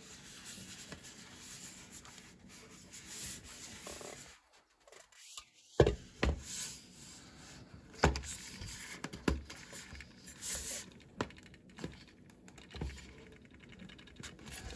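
Hands turning a metal-capped cardboard whisky tube, a soft rubbing, then, after a brief pause, a series of sharp knocks and scrapes as fingers work at the metal lid to pry it off. The loudest knocks come about six and eight seconds in.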